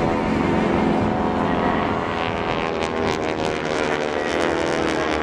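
North American T-6 Texan's nine-cylinder Pratt & Whitney R-1340 radial engine and propeller droning steadily overhead during aerobatic flight. The sound is loud and rich in overtones, its pitch drifting only slightly.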